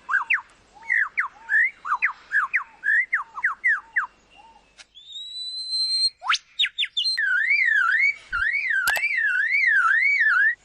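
Bird calls: a rapid series of sharp, down-slurred whistled notes for the first four seconds or so, then a held high whistle and, about seven seconds in, a fast up-and-down warbling whistle that runs on to the end.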